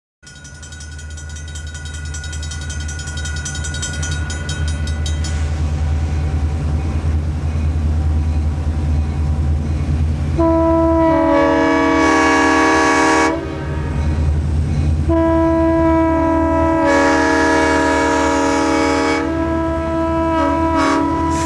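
Western Pacific GP40 diesel-electric locomotive approaching under power, its EMD V16 engine a steady low drone that grows louder. Its multi-note air horn sounds two long blasts, then short ones near the end.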